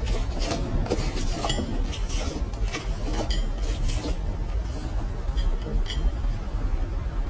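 Slime being squeezed and worked by hand, giving frequent small irregular clicks and pops from trapped air.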